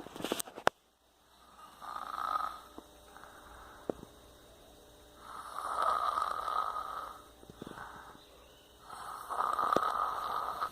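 A sleeper snoring: three slow snores a few seconds apart, the middle one the longest. There are a few sharp clicks in the first second.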